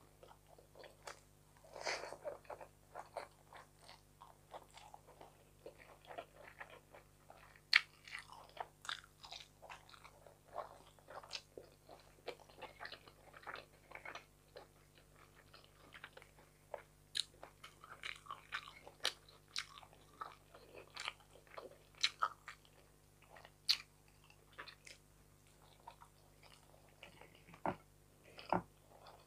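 Close-up chewing of a mouthful of rice and fried fish: wet mouth clicks and smacks, several a second and irregular, with a few sharper clicks.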